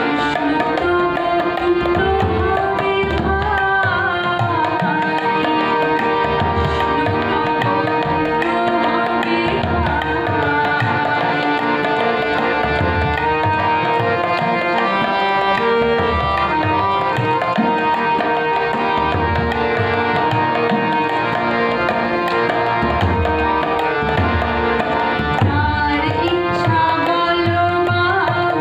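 A woman singing a Bengali Vaishnava devotional song with held, drawn-out notes, while a hand drum keeps a steady rhythm beneath her.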